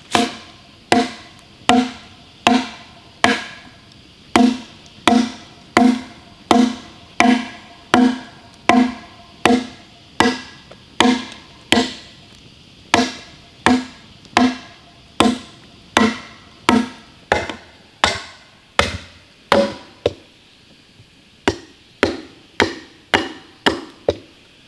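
Hatchet chopping into a green log: steady, evenly paced strikes a little over one a second, each with a short woody ring. Near the end the chopping pauses, then a few lighter, quicker knocks follow.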